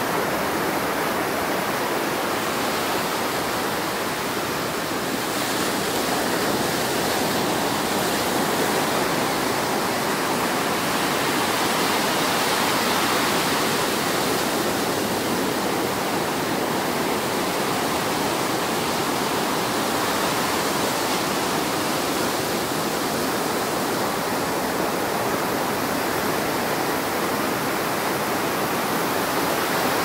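Ocean surf breaking and washing up a sand beach: a steady rushing noise of foam and water that swells slightly midway.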